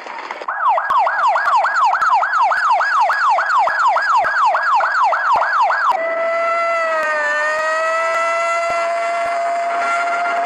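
Ambulance siren in a fast yelp, about three rising-and-falling sweeps a second. About six seconds in it switches abruptly to a steady held tone that dips once and then holds.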